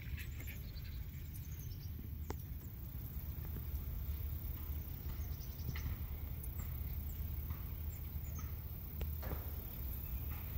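Outdoor ambience: a steady low rumble with a few faint, short high chirps and a couple of light ticks.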